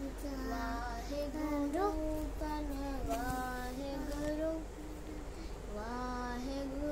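A young child singing a devotional hymn, holding drawn-out notes that slide up and down in pitch.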